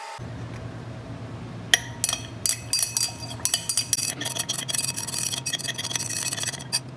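Something being stirred in a glass container, clinking rapidly and irregularly against the glass, over a low steady hum.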